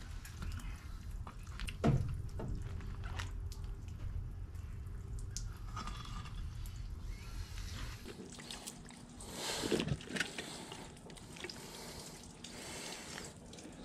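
Wet, dripping handling noises as a steel rotisserie spit is worked through a raw whole pig on a plastic sheet, with a sharp knock about two seconds in.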